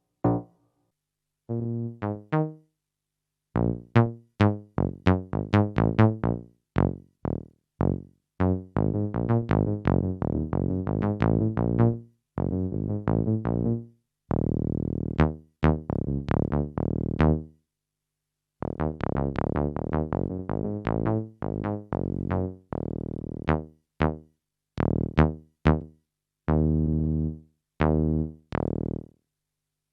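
Bass tones played on a Casio AiX-sound digital keyboard: runs of short, sharply attacked notes with a few longer held notes, played in phrases with brief silent pauses between them.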